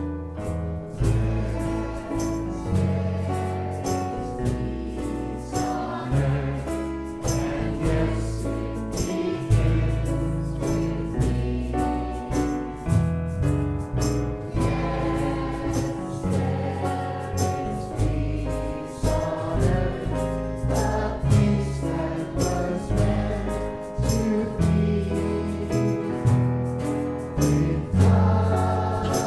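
Song with choir-style group singing over piano and a steady beat: the peace song that closes the service.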